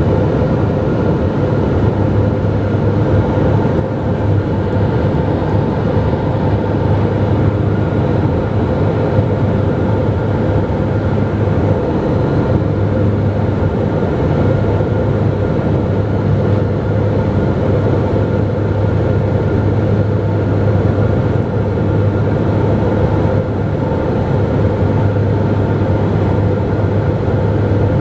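Cabin noise of a Dornier 228 twin turboprop in flight: a steady propeller and engine drone with a strong low hum and fainter higher tones over airflow noise.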